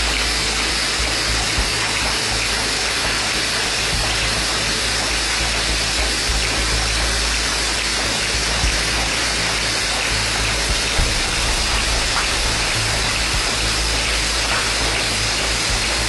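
YX-CS100 automatic cap lining machine running steadily: an even, hissing mechanical noise over a low hum, with a couple of faint clicks.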